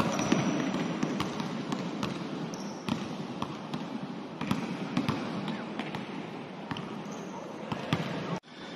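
Basketballs being dribbled on a hardwood court: a run of irregular bounces from more than one ball. The sound cuts out briefly near the end.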